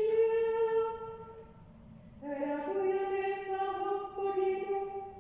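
Slow hymn singing in long held notes: one phrase dies away about a second in, and a new phrase begins about two seconds in.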